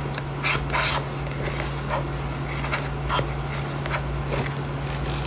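Steady low hum in the room, with scattered short rustles and taps, the loudest about half a second and about a second in, typical of someone handling things close to the microphone.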